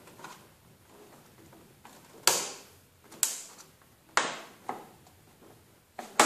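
Sharp plastic clicks and knocks as a Fisher & Paykel dryer's control panel is fitted and clipped in under the plastic top cap: about half a dozen, roughly a second apart, the loudest about two seconds in.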